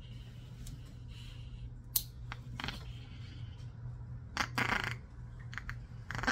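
Small pet nail clippers snipping a puppy's nails: a few sharp clicks, with one loud snap about two seconds in. A short rushing noise comes about four and a half seconds in, over a steady low hum.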